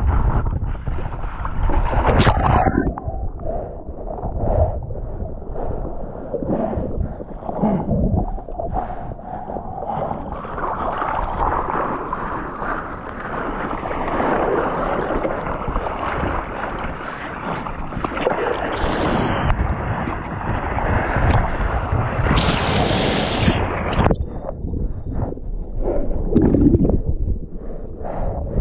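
Gusty wind buffeting the microphone, with a thicker hiss swelling through the middle and dropping away sharply near the end.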